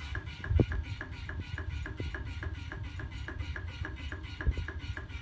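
Electric slim-cigarette rolling machine running, with a steady mechanical ticking about five times a second over a low hum, and a soft knock or two.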